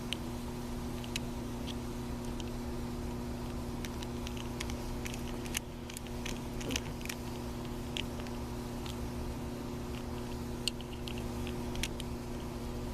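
Scattered small clicks of a screwdriver and metal parts as screws are turned into a Colt 1851 Navy revolver's frame, over a steady low hum.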